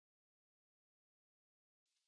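Silence: the soundtrack is muted, with no room tone.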